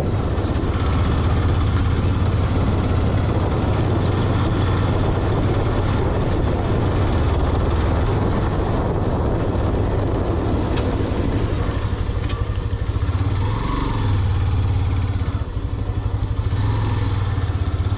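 A vehicle's engine running steadily on the move, a low hum under road and wind noise, easing off briefly about fifteen seconds in.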